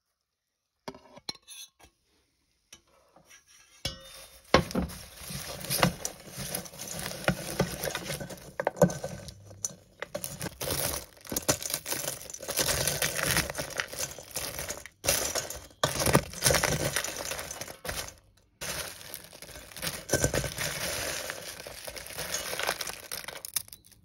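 A metal spoon stirring caramel-coated popcorn in a stainless steel bowl: crunchy rustling of the popcorn with clinks and scrapes of the spoon against the bowl. It starts about four seconds in, after a few faint ticks, and stops briefly now and then.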